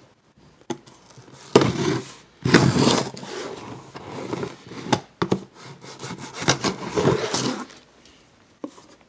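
A knife cutting and scraping through the tape and cardboard of a box in a series of rough strokes with clicks between them, fading to a few faint clicks near the end.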